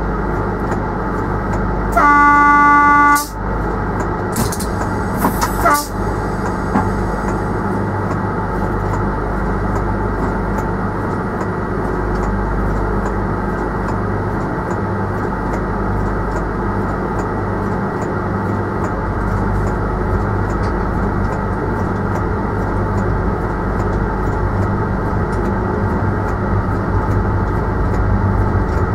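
Train horn sounding once for about a second, heard from inside the driver's cab, followed by a couple of short sharp sounds. After that the train runs on steadily, with a low hum and a faint regular clicking.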